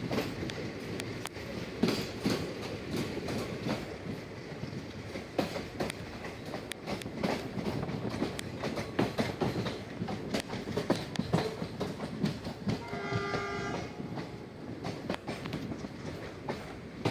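Passenger train running at speed, its wheels clattering and clicking steadily over the rail joints, with a train horn sounding once for about a second near the three-quarter mark.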